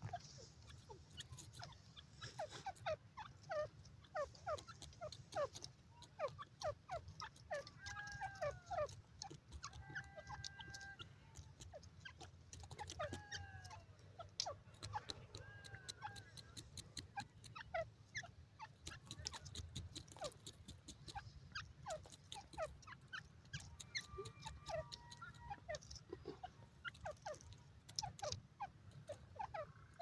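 Grey francolin foraging on dry soil: many faint, light clicks and scratches as it pecks and steps over the clods. A few soft, arching chirps come through in the middle and again later.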